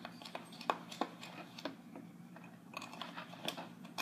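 A mixing utensil stirring dry flour, sugar and cocoa powder in a container, making irregular light scrapes and clinks a few times a second.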